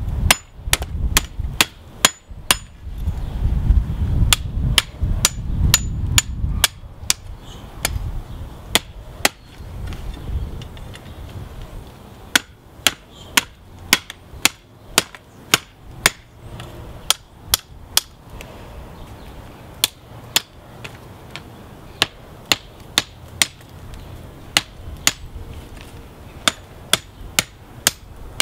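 Hand hammer striking a red-hot railroad spike on a steel block anvil, bending it round to wrap the eye of an axe. Sharp ringing strikes come about two a second in runs, with short pauses, over a low rumble in the first several seconds.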